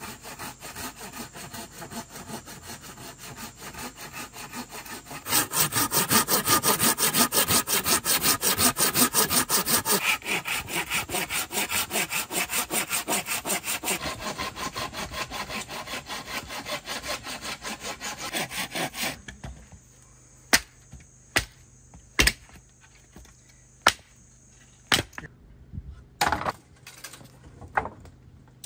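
Fast, regular scraping strokes, about four or five a second, growing louder about five seconds in and stopping about two-thirds of the way through. Several separate sharp knocks follow.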